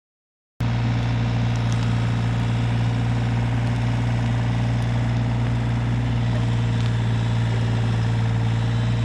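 Hitachi 35U mini excavator's diesel engine idling steadily, cutting in abruptly about half a second in.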